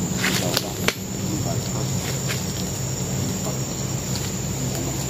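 Steady high-pitched insect chirring of tropical forest, with a few sharp cracks in the first second from footsteps through dry leaf litter and undergrowth.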